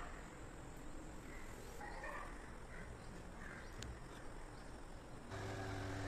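Faint background noise with a few faint chirps. About five seconds in, a steady low motor hum starts abruptly.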